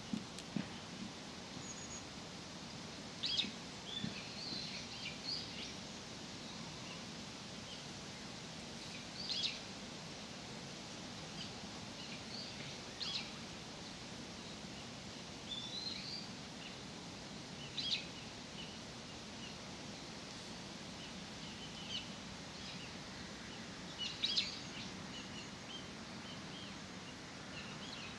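Small birds chirping in short, scattered calls every few seconds, over a steady low background hush of outdoor ambience.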